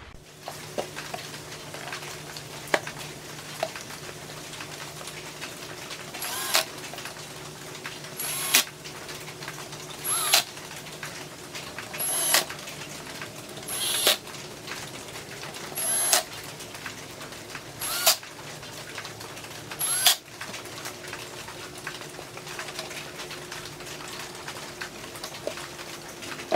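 A power tool humming steadily, with a run of eight short, sharp bursts about two seconds apart through the middle.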